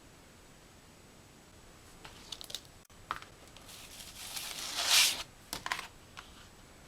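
Packaging of a vinyl record being handled: a run of light clicks and taps, then rustling and crinkling that builds to one louder swish about five seconds in, followed by a few more clicks.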